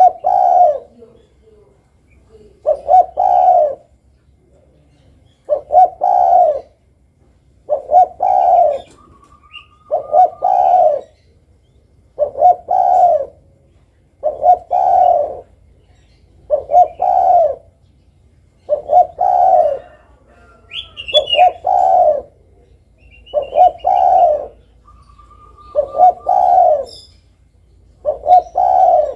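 Spotted dove (derkuku) cooing over and over, a phrase of two or three low coo notes about every two seconds. Faint chirps and whistles of other small birds come between the phrases.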